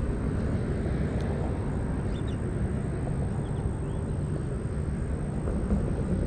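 Steady low rumble of road traffic, even and unbroken.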